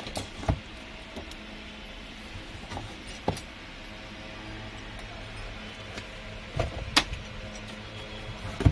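A cardboard box being handled and opened, with about five sharp knocks and taps as it is turned and its flap worked open, the loudest near the end, over the steady hum of an electric fan.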